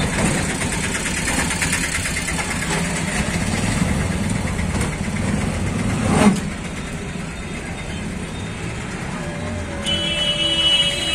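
Auto-rickshaw engine running with road noise, heard from inside the moving rickshaw. About six seconds in there is a loud knock or bump, after which it runs somewhat quieter. Near the end a steady high tone sets in.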